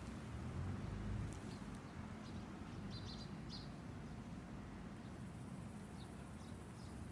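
Small birds chirping in short, scattered calls, the clearest cluster about three seconds in, over a steady low background rumble.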